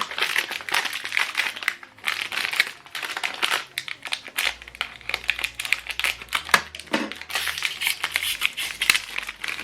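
Plastic packaging of an HP 305 ink cartridge being handled and pulled open, crinkling and tearing in a continuous run of quick crackles.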